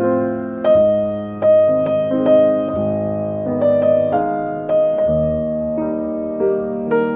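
Slow, gentle piano music: soft chords and melody notes struck every half second to a second and left to ring.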